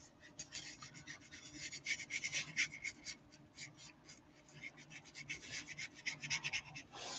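A small paintbrush rubbing across paper in many faint, quick, irregular strokes.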